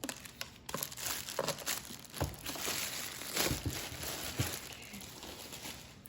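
Packaging crinkling and rustling in fits and starts as the vacuum parts are handled and unwrapped, with a few sharp knocks.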